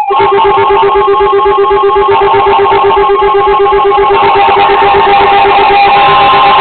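NOAA Weather Radio warning alarm tone: a loud, steady high tone over radio static and a fast pulsing buzz, signalling that a warning broadcast follows.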